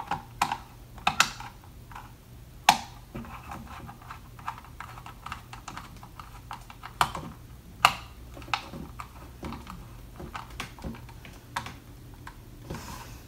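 Irregular sharp clicks and taps of hard drill parts and hand tools being handled during a drill rebuild, with a few louder knocks about three seconds in and around the middle.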